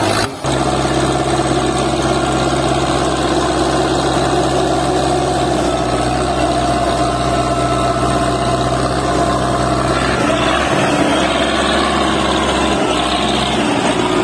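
Farm tractor's diesel engine running hard under load, hauling a trolley full of soil up out of a dirt pit with a steady low drone. About ten seconds in, the low drone weakens and a rougher, noisier sound takes over.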